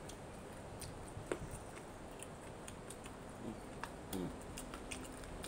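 Scattered small clicks and crackles of fingers splitting dried petai pods and picking out the beans, with some chewing. The sharpest click comes about a second in.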